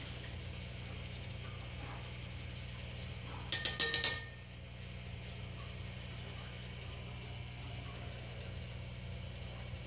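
A quick run of about five sharp metallic clinks from steel feeding tongs, ringing briefly, about three and a half seconds in. A steady low hum runs underneath.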